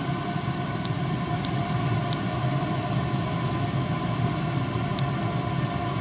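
Chinese diesel air heater running steadily, its combustion fan and burner making an even hum with a fan whine over it and a few faint ticks. It has just been turned down from full power and is running itself down.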